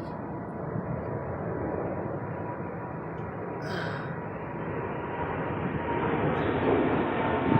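Lawn sprinkler water spray, a steady rushing hiss that grows louder toward the end.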